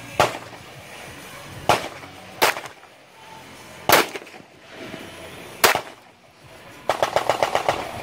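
Compact semi-automatic pistol fired five times, single shots one to two seconds apart, each a sharp crack. Near the end comes a fast run of about a dozen lighter cracks, about ten a second.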